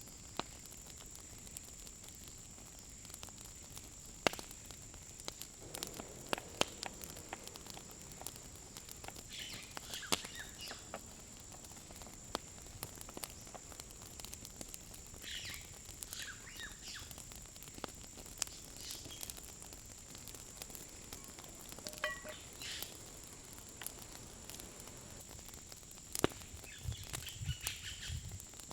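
A steady high-pitched insect drone, with short bird chirps coming every few seconds and scattered small clicks and taps.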